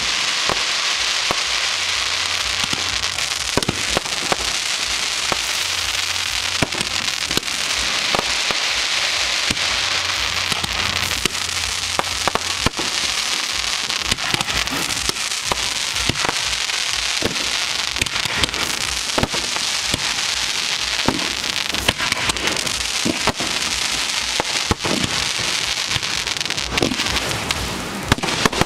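Aerial fireworks bursting at close range: a dense, steady crackling hiss, with many sharp bangs and pops scattered irregularly throughout.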